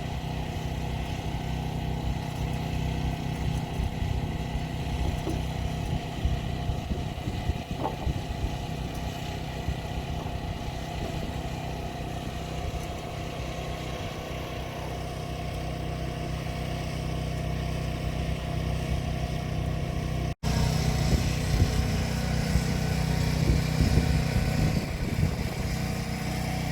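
An engine running steadily with an unbroken low hum, cut off for an instant about twenty seconds in, then running on.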